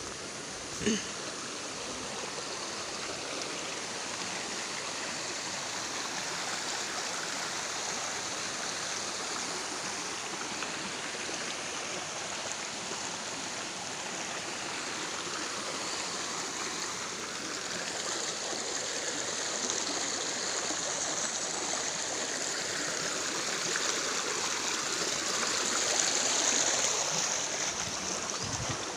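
Water of a rocky mountain stream rushing and splashing over stones, a steady hiss that grows louder in the second half and is loudest near the end. A single sharp knock about a second in.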